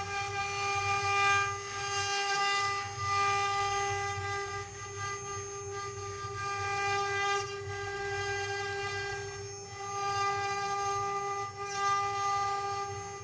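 Multi-spindle CNC wood-carving router running: a steady, high-pitched whine from the spindles holds throughout. The hiss of the bits cutting swells and fades every few seconds.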